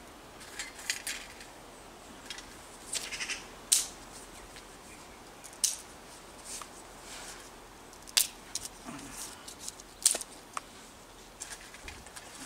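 Dry twigs being snapped by hand and fed into a small stainless steel wood-burning stove: a scattered series of sharp cracks and light clatters, the loudest about four, six, eight and ten seconds in.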